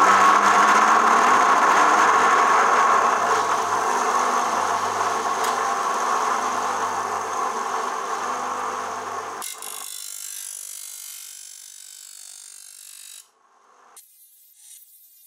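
Electric bench grinder running with a steady whine, easing slightly as it goes. About nine and a half seconds in it gives way to a fainter high hiss that fades out a few seconds later.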